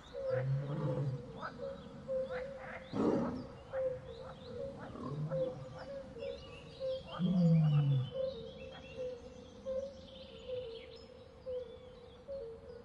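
Wild ambience with a big cat's low growls, the longest and loudest about seven seconds in, falling in pitch. Under them run a steady pulsing chirr and scattered high bird chirps.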